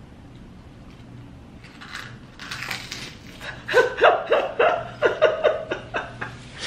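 A man laughing hard in a quick run of short "ha" bursts, about three or four a second, starting a little over halfway through. Just before it comes a couple of seconds of crackly crunching as a whole shrimp cracker is chewed.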